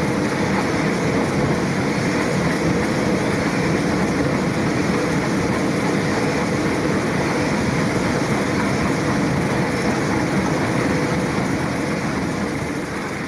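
Iron feathering paddle wheel with eccentric-driven float linkage, turned by an electric motor: a steady mechanical running noise, beginning to fade out near the end.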